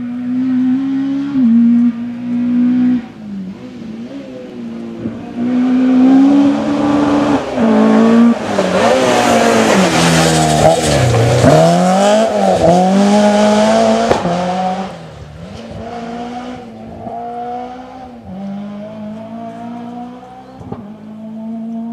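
Rally car engine coming up at full throttle, its note climbing and dropping with gear changes and lifts, passing close about eleven seconds in with a sharp fall in pitch, then accelerating away through the gears.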